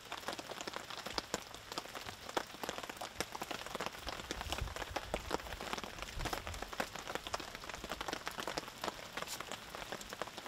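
Rain falling, a dense, uneven run of small drop hits, with a brief low rumble about halfway through.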